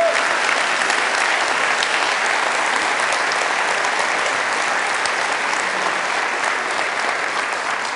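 Large theatre audience applauding: a sustained, steady round of clapping that eases slightly near the end.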